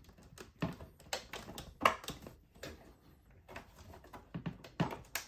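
Lid of a 1959 Smith Corona Sterling typewriter case being handled and pushed back on: a string of irregular clicks and knocks as the lid's tabs catch and hold it in place.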